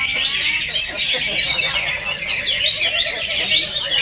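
Several cucak ijo (green leafbirds) singing over one another in a dense, unbroken chatter of fast chirps, trills and whistles, as at a songbird contest.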